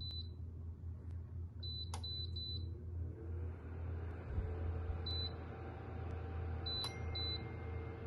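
Dreo DR-HSH001 tower space heater's touch control panel beeping as its buttons are pressed to set the temperature and the timer: short high beeps, singly and in quick runs of two or three. From about three seconds in, the heater's fan adds a steady rushing noise.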